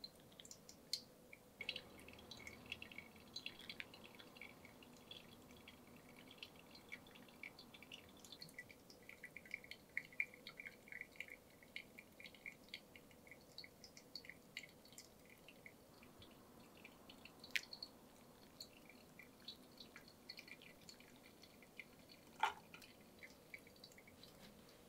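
Freshly poured coffee draining through the paper filter of a Hario glass pour-over dripper into the server below, heard as faint, scattered drips and small pops from the wet coffee bed. One sharper tap comes near the end.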